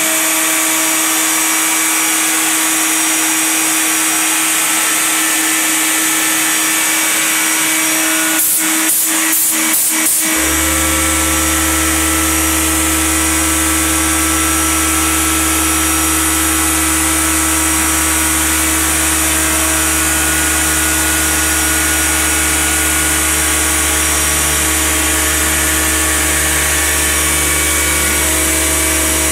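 CNC router spindle whining steadily as a single-flute 1/8-inch end mill cuts 1/4-inch black ABS sheet at a low spindle speed and high feed. About ten seconds in come five quick knocks, evenly spaced, and then a low hum joins the cutting noise and holds steady.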